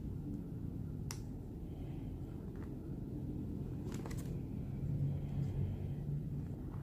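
Plastic card-sleeve pages in a ring binder being handled and turned, giving a few short sharp crackles and taps over a steady low hum.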